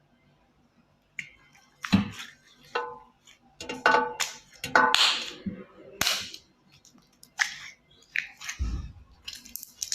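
Slime being squeezed and stretched by hand, letting out a string of irregular sharp pops and crackles as trapped air bubbles burst; it starts about a second in.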